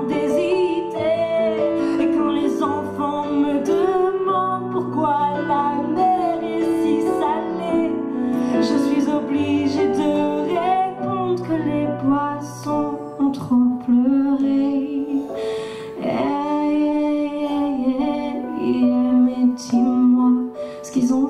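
A female singer singing into a handheld microphone over instrumental accompaniment, with several long held notes in the second half.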